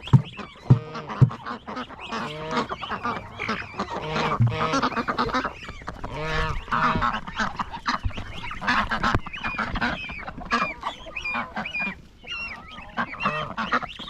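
Farm poultry calling almost without pause: a goose honking among ducks and chickens. Three sharp knocks sound in the first second and a half.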